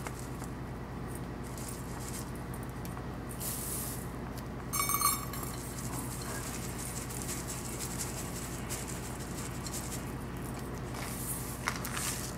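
Dry rolled oats sliding out of a metal measuring cup into a glass mixing bowl, a soft rustling pour, with a brief ringing clink of metal on glass about five seconds in and a few light clinks near the end, over a steady low electrical hum.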